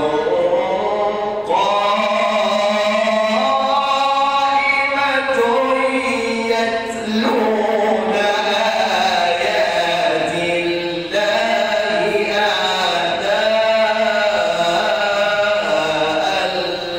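Male Quran reciter's voice chanting in melodic tajweed style, holding long, ornamented notes that glide up and down, with a few brief pauses between phrases.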